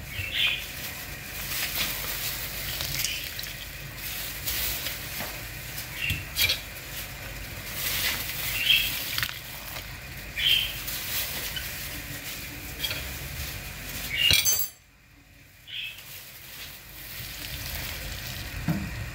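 Orange juice, water and orange-peel strips boiling hard in a pan, a steady bubbling sizzle with scattered pops, boiling down to drive off the added water. A spatula stirs and knocks against the pan in the second half. The sound cuts out abruptly for about a second near three-quarters of the way through.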